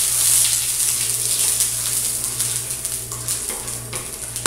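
Lard sizzling on a hot flat griddle plate as a spatula spreads it around, with a steady hiss and light scraping.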